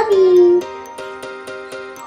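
Background music made of steady held tones. During the first half second, a woman's voice draws out one long vocal sound that falls in pitch over the music.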